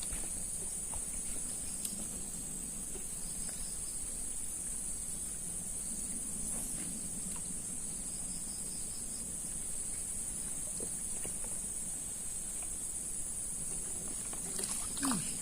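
Insects droning steadily at a high pitch, with faint short bird trills twice.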